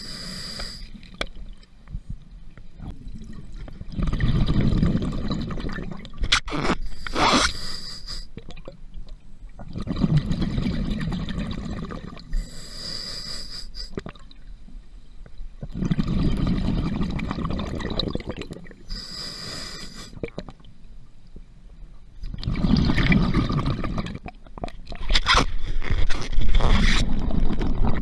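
Scuba diver breathing through a regulator underwater: a short hissing inhale, then a longer low rumble of exhaled bubbles, repeating about every six seconds.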